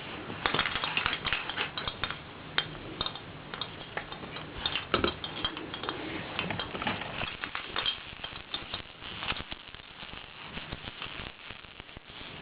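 Baby rattles being banged and shaken by an infant: a busy run of clicking and rattling clatter, thickest in the first half and thinning out toward the end.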